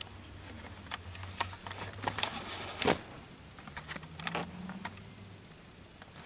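Small plastic clicks and taps as an HO-scale model caboose is handled, with one louder knock about three seconds in. Under them a cat purrs low and steadily until the purr fades out a little after five seconds.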